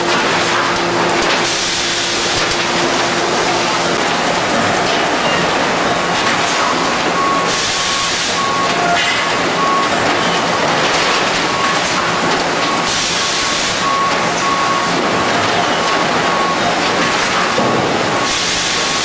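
Thermoforming line running: steady, loud machine noise with a short hiss of air about every five to six seconds as the press cycles, and a faint repeating beep from about a third of the way in.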